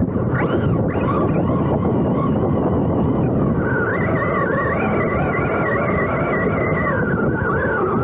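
Electric RC monster truck running, its motor whining and wavering up and down in pitch with the throttle over a loud, steady rush of wind and tyre noise.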